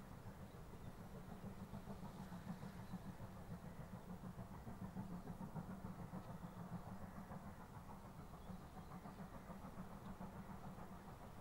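GWR 2-6-0 steam locomotive No. 9351 working a train, heard faintly from a distance as a low, steady rumble with a quick pulsing of its exhaust.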